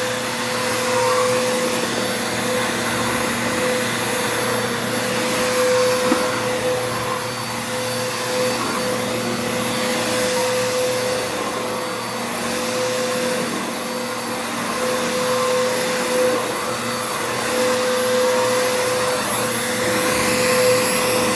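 Commercial vacuum cleaner running steadily with a constant motor whine, its sound swelling and easing slightly as it is pushed back and forth over carpet.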